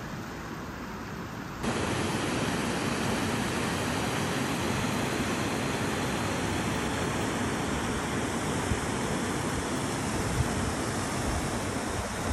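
Water rushing over a small weir in a canal, a steady, even roar of falling water that steps up louder about a second and a half in.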